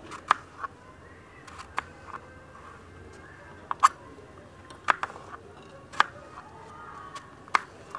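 Kitchen knife cutting through an apple and striking a plastic cutting board: about eight sharp clicks at uneven intervals, two of them close together near the middle.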